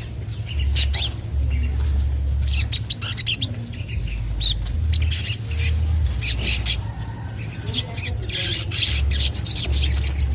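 A young sogon bird calling in rapid, short, harsh squawky chirps. The calls come in clusters and are densest near the end. A steady low electrical hum runs underneath.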